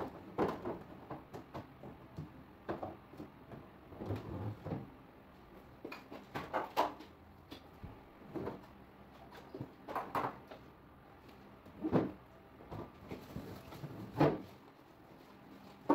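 Plastic food containers and refrigerator bins knocking and clattering against the fridge's plastic and glass shelves as the fridge is emptied for defrosting. The knocks come irregularly, every second or two.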